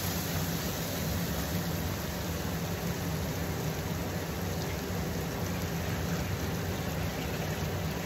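Onion-garlic-ginger masala sizzling steadily in mustard oil in a steel kadhai. The masala is fully fried, with the oil separating at its edges. A low steady hum runs under it.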